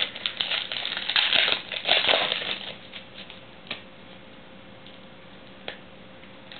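Foil trading-card pack wrapper crinkling as it is torn open and handled, for about the first three seconds, followed by two light clicks as the cards are handled.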